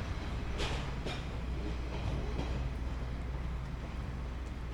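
Diesel railcar moving slowly with a steady low engine hum. Its wheels give a few sharp clicks over rail joints, two of them close together about a second in.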